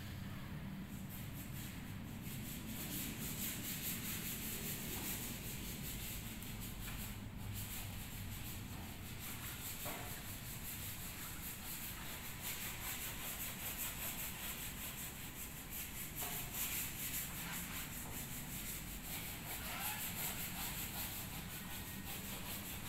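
Rubbing and scuffing noise from a hand-held phone carried at walking pace, over a steady low rumble.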